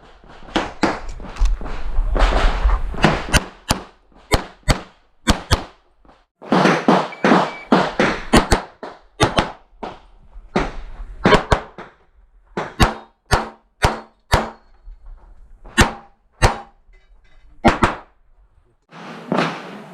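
Handgun shots fired rapidly in strings, many in close pairs, with short pauses between strings, as in a practical-shooting course of fire.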